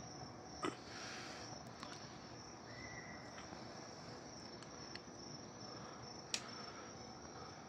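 A few sharp clicks of scissors snipping cherry tomato stems, the loudest about six seconds in, over a faint steady high-pitched insect trill.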